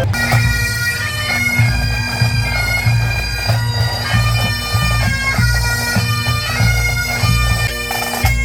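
Bagpipes playing a marching tune over their steady drone.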